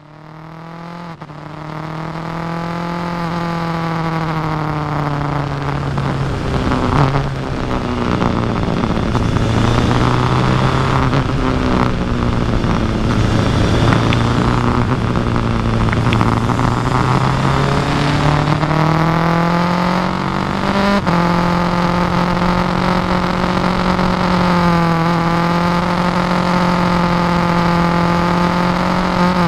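Kawasaki Versys 1000 SE's inline-four engine running on the road over wind rush, its pitch sinking, holding low, then climbing again with the throttle. The sound fades in at the start, and the pitch steps up abruptly about two-thirds of the way through.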